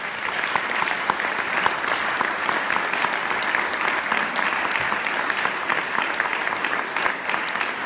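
Audience applauding: many hands clapping in a dense, steady patter that starts all at once.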